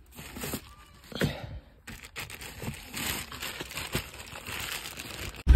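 Plastic bag rustling and crinkling in irregular handfuls as it is pulled out and handled, with a louder low hum cutting in at the very end.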